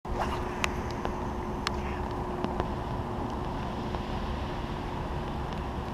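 Rain and wind on the microphone of a head-mounted GoPro: a steady low rumble and hiss with a faint steady hum underneath, broken by a few sharp ticks.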